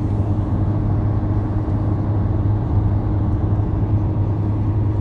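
Steady low drone of a car's engine and tyres at highway speed, heard from inside the moving car.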